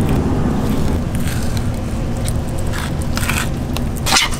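Knife skinning a raw African pompano fillet on a plastic cutting board, the blade slicing and scraping along the skin with scattered crackling clicks and a sharper knock near the end. A steady low rumble runs underneath.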